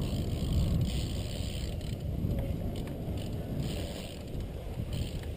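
Wind buffeting a helmet-mounted camera microphone as a BMX bike is ridden at speed, with its tyres rumbling over the track and a few faint clicks.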